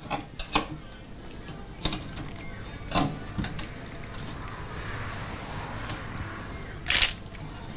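A table knife scraping and tapping against a steel tray as it turns the cooling sugar syrup's edges inward, giving scattered clinks and scrapes with two louder knocks, about 3 seconds in and near the end.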